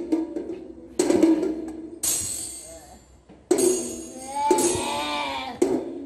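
Music led by a tambourine: several sudden jingling strikes that ring and die away, over lower held instrument tones.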